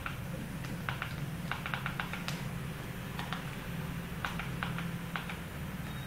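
Light clicks, some single and some in quick runs of several a second, over a steady low hum.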